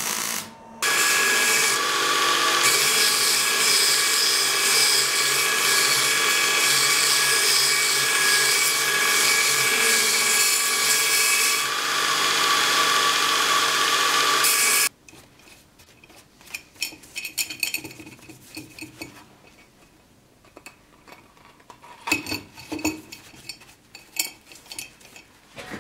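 A brief crackle of arc welding, then a belt grinder runs steadily with a constant whine while a metal scabbard fitting is ground against the belt, for about fourteen seconds; it cuts off suddenly. After that only quiet, light rubbing and a few small clicks and taps from handwork on the part.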